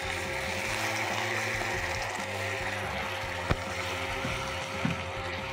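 Water poured into a hot pan of fried green coconut-coriander masala, sizzling and hissing steadily. The hiss is strongest in the first couple of seconds and eases a little after. One sharp knock comes about three and a half seconds in.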